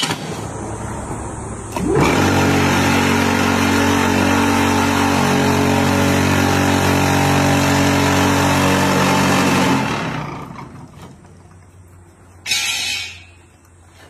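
Electric vibrator motor on a steel casting mould running with a loud, steady rattling buzz, shaking the packed mix. It starts up about two seconds in after a quieter hum and winds down around ten seconds. A brief hiss follows near the end.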